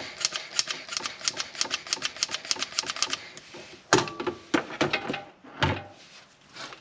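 Hand vacuum pump for brake bleeding being worked, a fast run of about six clicks a second for roughly three seconds, drawing brake fluid through the bleed nipple. Two louder knocks follow, about four and five and a half seconds in.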